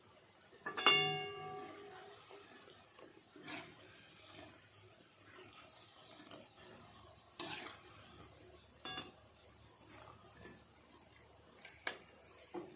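Metal utensil knocking against a metal cooking pot: one loud ringing clang about a second in, then lighter clinks and scrapes, with a second ringing strike near the end.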